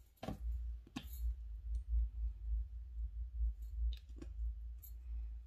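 Makeup cases and caps being handled: a series of sharp plastic clicks and taps, about six in all, over a low, uneven rumble of handling noise.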